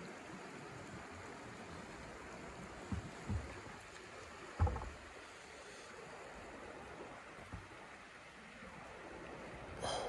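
Shallow creek water flowing steadily over stones. A few short low thumps come about three and four and a half seconds in, and a brief sharper sound comes just before the end.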